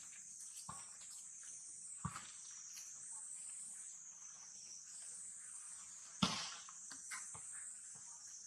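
Steady high-pitched chorus of insects, with a few scattered knocks and taps, the loudest about six seconds in.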